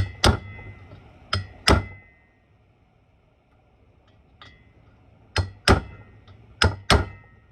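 Hammer blows on the valve spring retainers of an air-cooled 36 hp cylinder head, knocking the valve keepers loose: four pairs of sharp metallic strikes, the two blows of each pair about a third of a second apart, each with a brief ring.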